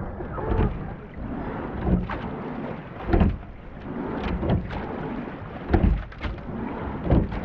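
Water and wind noise around a rowing eight at the camera's waterline mount, with a short loud rush a little over once a second.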